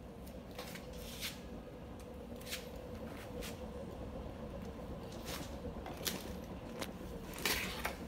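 Marelli 24/3 ceiling fan running, a steady motor hum with a constant mid-pitched tone, overlaid by irregularly spaced sharp clicks and taps, the loudest one near the end.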